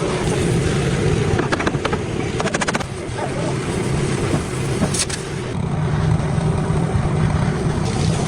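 Car engine running steadily, with a few short clicks and rattles.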